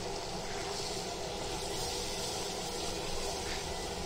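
A butter, ginger-garlic and flour roux sizzling in a hot pan as cream is poured in from a carton: a steady sizzling hiss that is stronger through the middle.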